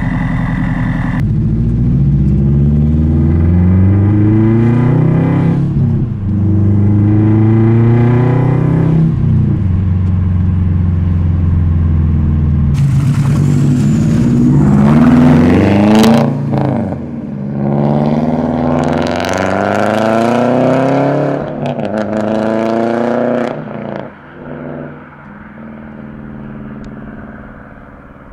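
Turbocharged flat-four of a 2007 Subaru WRX, breathing through a catless downpipe and Crawford Gymkhana axle-back exhaust, idling for about a second, then accelerating hard through the gears: the engine note rises again and again, dropping at each shift. About halfway through the car passes close by, keeps shifting up as it pulls away, and fades out near the end.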